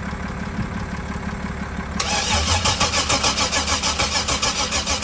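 A steady low hum, then about two seconds in the 1994 Camaro's starter motor begins cranking the engine with an even, rapid pulsing, without it catching. This is the crank-no-start: the spark pulse to the coil packs does not keep time with the engine's rotation, which the mechanic thinks could lead back to a bad computer.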